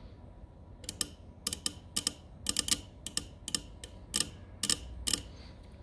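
A welding inverter's soft-start bypass relay clicking as its coil is switched on and off from about 23 V DC: about a dozen sharp clicks, often in quick pairs, at uneven intervals starting about a second in, the relay pulling in and dropping out. The relay is working.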